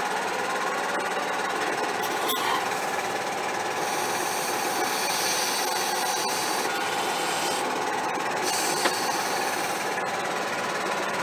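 John Deere 6155R tractor's diesel engine idling steadily, with a couple of faint metallic knocks.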